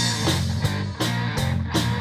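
Rock trio playing live: electric guitar and bass guitar over a drum kit keeping a steady beat.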